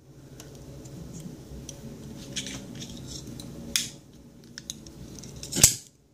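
A few sharp metallic clicks and snaps from a folding utility knife being handled, over a low steady background. The loudest click comes near the end.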